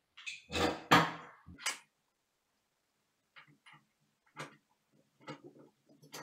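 Handling noise of a metal toilet paper holder end bracket and screw held against a wooden vanity: a brief knock and rustle about a second in, then a run of light ticks and clicks.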